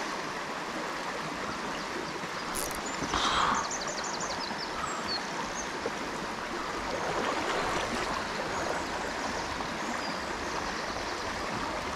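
River water rushing steadily. About three seconds in there is a short louder patch, followed by a quick run of faint high ticks.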